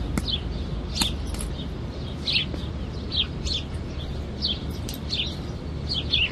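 Small birds chirping: short, high chirps that fall in pitch, repeating about once or twice a second over a steady low background rumble.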